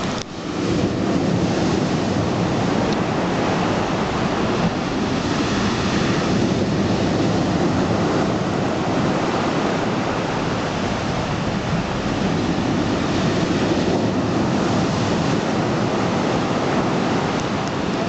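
Black Sea surf washing onto the shore in a steady rush, with wind buffeting the microphone.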